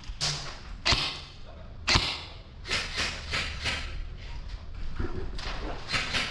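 Two sharp knocks about a second apart, followed by irregular rustling and shuffling noise.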